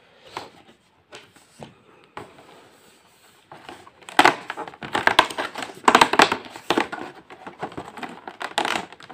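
Cardboard door of an advent calendar being pushed in and torn open along its perforations: crackling, crinkling and tearing of thin card. A few light clicks at first, then denser and louder crackling from about four seconds in.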